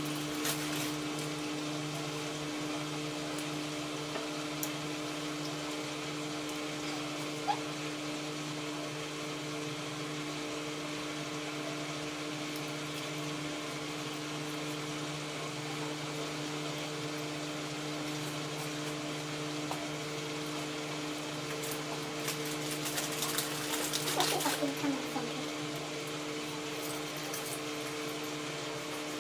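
Hoover H-Wash 500 front-loading washing machine running a wash cycle: a steady motor hum over the drum turning the wet load. A louder, busier stretch of sloshing and rattling comes about three quarters of the way through.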